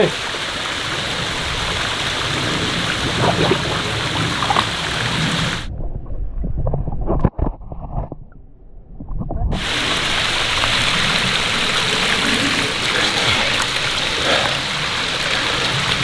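Small waterfall splashing into a shallow creek pool: a steady rush of falling water. For a few seconds around the middle the sound turns muffled and low, with bubbling and a knock, as the microphone goes underwater.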